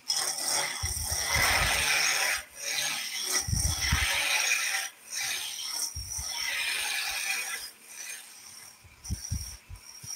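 Skew chisel cutting a small wooden spindle turning fast on a lathe: a hissing, scraping cut in passes of one to two seconds with short breaks between them, shavings coming off.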